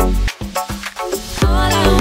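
Background music with a drum beat and bass; the beat drops out for about a second and comes back about one and a half seconds in.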